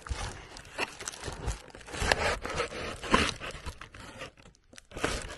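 Plastic packaging crinkling and rustling against the cardboard box as a garment steamer wrapped in a plastic bag is worked out of it, irregular, with a few sharper knocks partway through.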